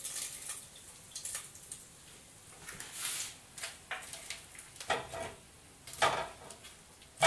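Kitchen tongs clicking and tapping against the deep-fryer pot and plate as battered, deep-fried vegetable pieces are lifted out and set down on paper towel: a handful of short taps spread out, the sharpest one near the end.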